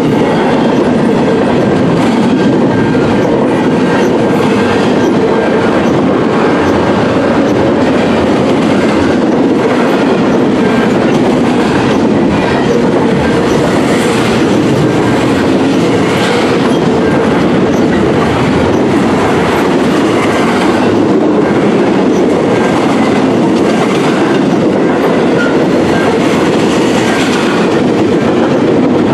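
Double-stack container well cars of a long freight train rolling past: a steady rumble of steel wheels on rail, with scattered clacks as the wheels cross rail joints.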